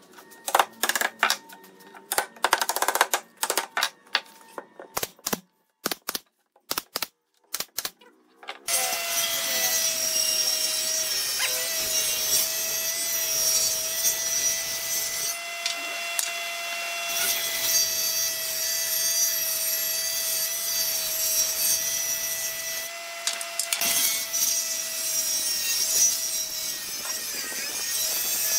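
Sharp wooden knocks and taps as pieces of a wooden frame are handled and fitted. About nine seconds in, a Hitachi jointer-planer starts running with a steady whine while a long board is fed across its cutterhead.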